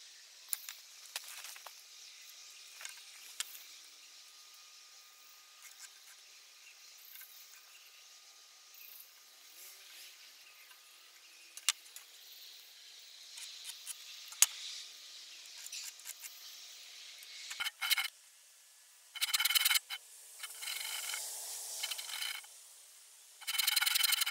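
Handsaw cutting into a squared wooden log: a few loud sawing strokes in the last several seconds, after a long quiet stretch with only faint scattered ticks.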